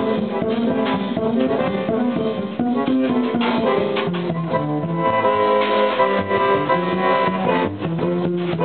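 Live jazz band playing, with double bass and drum kit under a plucked string lead.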